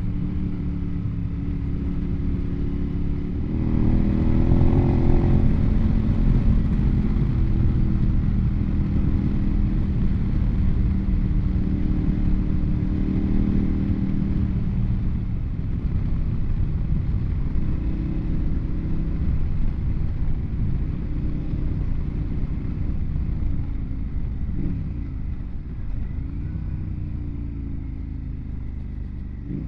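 KTM motorcycle engine running under way, picking up revs about three and a half seconds in, then holding a steady note. Near the end it eases off and the note drops as the bike slows.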